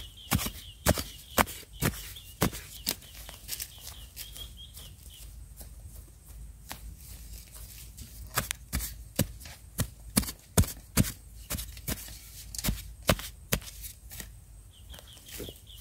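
Hand-digging in loose soil around a wild yam tuber: irregular scratching and scraping strokes as the earth is worked away.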